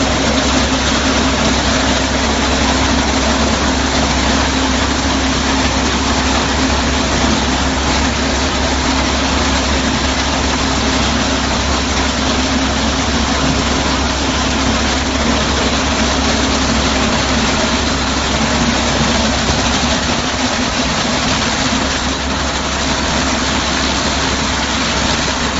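Single-cylinder small tractor engine running steadily, driving a mounted corn harvester.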